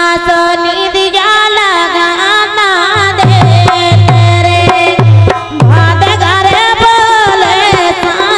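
A woman singing a song over a harmonium's sustained chords. About three seconds in, a hand drum joins with repeated deep bass strokes that drop in pitch.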